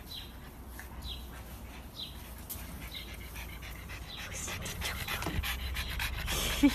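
Pug panting, the breaths coming quicker and louder over the last few seconds.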